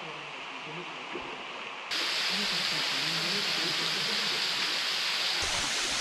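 Waterfall cascading into its pool: a steady rushing hiss of falling water that jumps louder and brighter about two seconds in.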